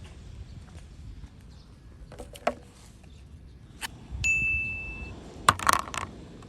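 A single bright ding, one steady high tone that rings for just under a second, with a few sharp clicks before and after it.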